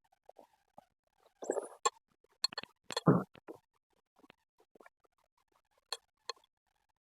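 A person eating spicy papaya salad close to the microphone: chewing and wet mouth clicks, with a louder noisy burst about one and a half seconds in and the loudest one about three seconds in.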